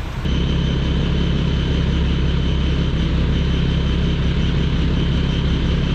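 Fire truck engine running steadily at a constant speed, driving the pump that feeds the fire hose, with a faint high steady whine. It comes in abruptly just after the start.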